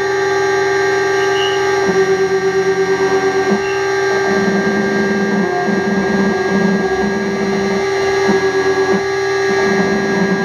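Homemade CNC router running a 3D carving pass: the water-cooled spindle holds a steady whine while the stepper motors driving the axes give tones that change pitch and switch on and off every second or two as the 2 mm ball end mill cuts styrene foam.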